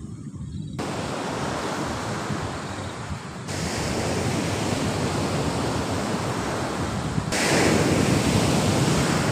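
Ocean surf breaking on a beach, with wind buffeting the microphone: a steady rushing that jumps up in loudness suddenly about a second in, again about three and a half seconds in, and once more near the end.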